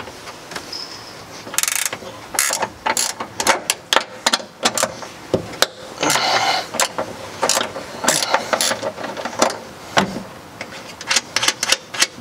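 Hand ratchet clicking in several short runs, loosening the rear strut top mount nuts of a BMW E30.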